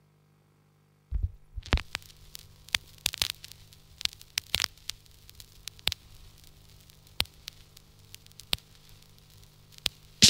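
Turntable stylus landing on a vinyl record with a low thump about a second in, then surface crackle and scattered pops from the lead-in groove before the music starts, over a faint steady hum.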